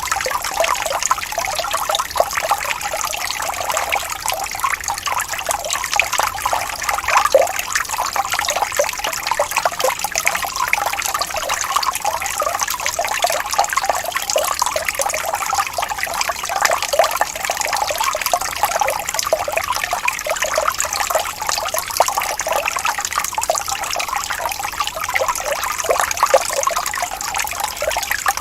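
Small waterfall: water splashing and trickling steadily over rocks, with a continuous dense patter of small splashes.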